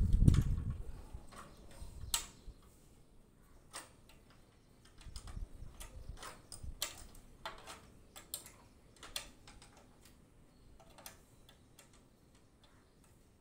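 Irregular sharp metallic clicks and taps from steel sheet column formwork being dismantled by hand, its nuts being undone. A dull thump comes right at the start, with a few softer knocks around five to seven seconds in.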